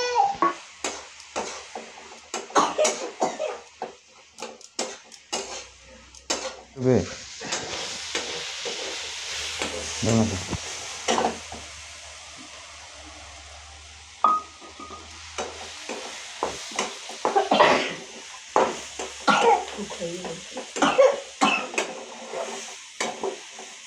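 A steel spatula scraping and clanking against a steel kadai as chopped vegetables and spices are stirred in hot oil, which sizzles, loudest between about six and sixteen seconds in.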